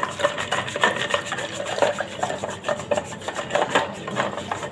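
Wooden madhani (hand churner) twirled rapidly back and forth between the palms in a steel jug of lassi, its wooden head rubbing and knocking against the steel in quick, irregular strokes as the powdered sugar is churned in.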